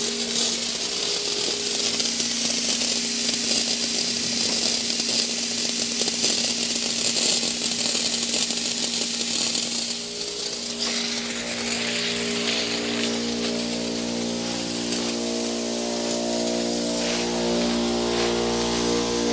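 Sprinkler head hissing as compressed air and a little water mist blow out of the nearly emptied line, with a small electric air compressor running steadily underneath. The hiss drops away about ten seconds in, and the compressor's hum grows louder toward the end.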